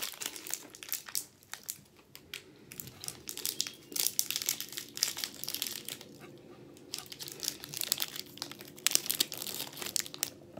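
Plastic candy bar wrapper crinkling in irregular bursts of crackle with short pauses as it is handled and torn open.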